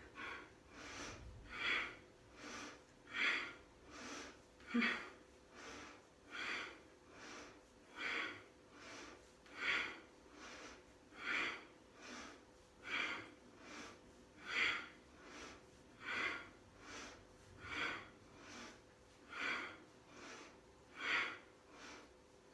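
A person breathing forcefully and rhythmically, a strong breath about every one and a half seconds with a softer one between: the powerful paced breathing of Kundalini yoga kept up through a hard core exercise.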